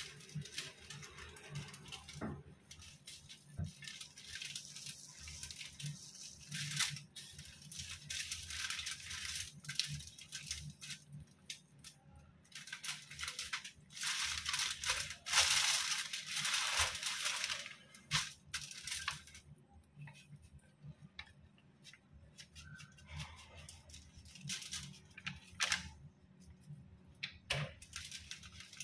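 Aluminium foil crinkling and rustling in irregular bursts as hands turn and rub a whole raw chicken on it; the loudest stretch comes about halfway through.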